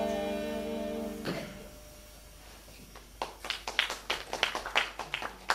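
Saxophones and trombone hold a sustained chord that cuts off with a sharp hit about a second in. After a brief hush, a run of sparse, sharp percussive taps starts, about three a second.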